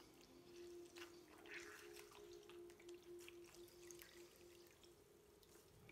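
Faint water sounds: facial sponges being dipped in water, swished and squeezed out, with soft splashes and drips. A faint low hum pulses on and off beneath and stops near the end.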